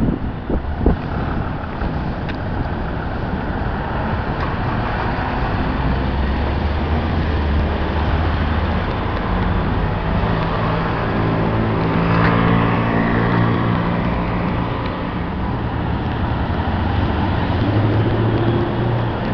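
Road traffic on a city street: cars and a truck running past, with an engine hum that swells through the middle and again near the end. A few sharp knocks at the very start.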